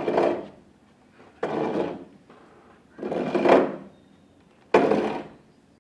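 Hand-turned iron pump auger boring through an oak trunk: four turning strokes of the bit grinding in the wood of the bore, about one and a half seconds apart.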